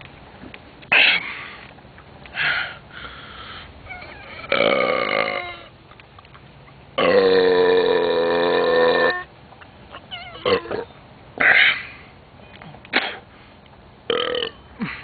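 A person belching after drinking malt liquor: one long, loud, pitched belch of about two seconds near the middle, with several shorter bursts before and after it.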